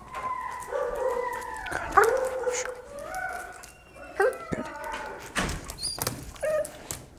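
Young Australian shepherd puppy on a leash whining and howling in long, wavering cries for about the first three seconds, then giving shorter, sharper yelps. This is a stressed puppy protesting against leash pressure, a tantrum.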